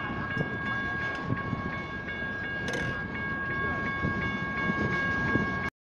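Freight train cars rumbling and clacking through a grade crossing under the rapid, repeating ding of the crossing's General Signals Type 1 electronic bells. The sound cuts off suddenly near the end.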